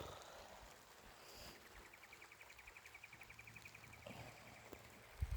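Faint animal call: a high, rapid, evenly pulsed trill lasting about two and a half seconds, starting about two seconds in and fading out. A short low thump comes near the end.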